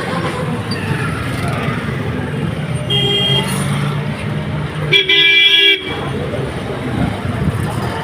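Vehicle horn sounding twice over steady road noise: a short toot about three seconds in, then a longer, louder blast about five seconds in.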